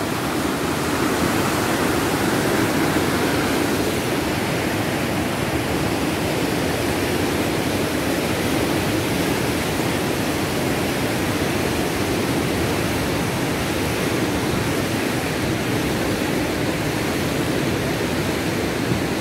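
Steady rush of whitewater rapids in a fast mountain river, an even, unbroken sound of churning water.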